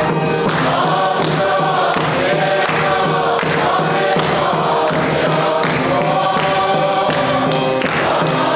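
Congregation singing a hymn together in many voices, over a steady beat of about two strokes a second.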